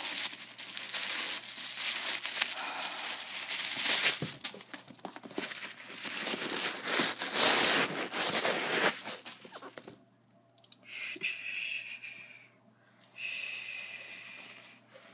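Hands handling a pair of PUMA evoSpeed indoor shoes. For about ten seconds there is rustling and crinkling full of small clicks. Then come two separate brushing strokes of a hand rubbing across the toe of a shoe.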